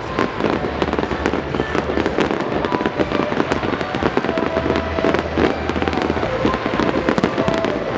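Fireworks going off in a dense, continuous crackle of many rapid small bangs and pops.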